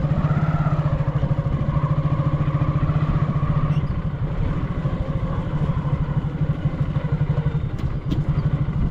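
Motorcycle engine running steadily under way, a fast even pulsing of the exhaust.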